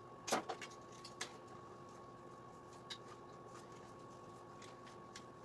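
A few light clicks and handling knocks from working on a moped's wiring with hand tools, the loudest a quick cluster just after the start, over a steady faint electrical hum.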